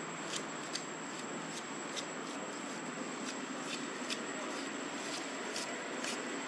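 Steady outdoor background: a continuous low hum like distant traffic, with a thin high whine pulsing about two or three times a second, typical of insects.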